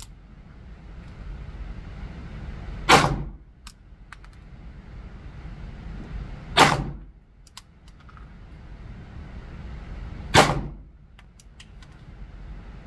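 Three 9mm Glock 17 pistol shots, spaced about three and a half to four seconds apart, each a sharp crack with a short echo off the walls of an indoor range. A few much fainter sharp clicks follow each shot.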